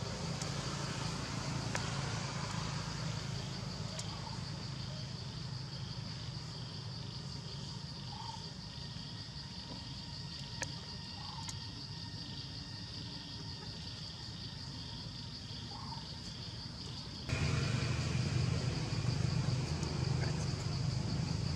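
Outdoor ambience: a steady high insect drone over a low rumble, with a few faint short chirps. About seventeen seconds in, the rumble suddenly gets louder.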